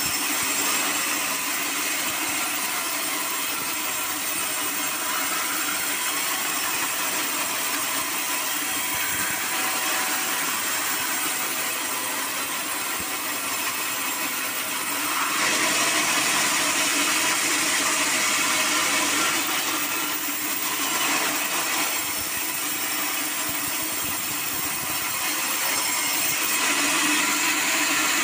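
Band sawmill blade cutting lengthwise through a hard acacia log, a steady sawing noise over the running machine. It grows louder for a few seconds a little past halfway and again near the end.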